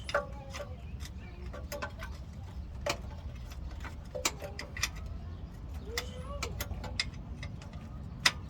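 Hand tools working the rear transmission mount bolts under a Chevrolet Silverado: a dozen or so sharp metallic clicks and clinks at irregular intervals, over a steady low hum.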